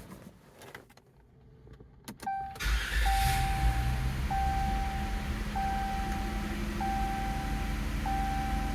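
A Chrysler 200's engine is started: a couple of clicks, then a brief crank that catches about two and a half seconds in and settles into a steady idle. A warning chime beeps over it about every second and a quarter, six times.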